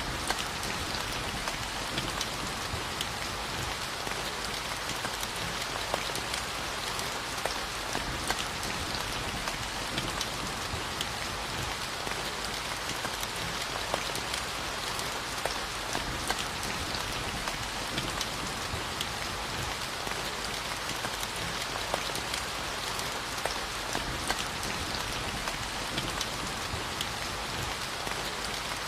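Steady rainfall, raindrops pattering on a surface, with frequent distinct drop ticks over an even hiss.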